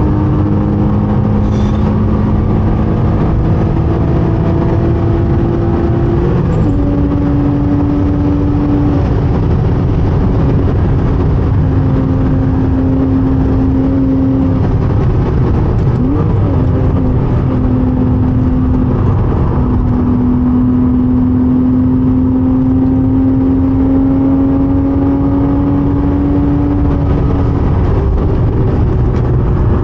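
Porsche 987.2 Cayman S's 3.4-litre flat-six running hard at speed. Its note climbs steadily and drops at each of several gear changes, over constant road and wind noise.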